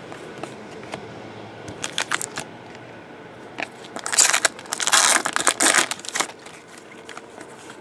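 Foil trading-card pack wrapper being pulled open and crinkled by hand: a few sharp crackles at first, then a loud run of crinkling from about four to six seconds in.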